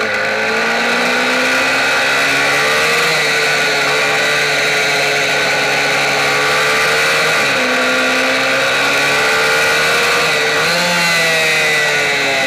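Kayo MiniGP race bike's small engine heard close up from a camera on the bike, running hard at high revs. The pitch dips briefly about seven and a half seconds in and again near eleven seconds as the throttle eases, then climbs back up.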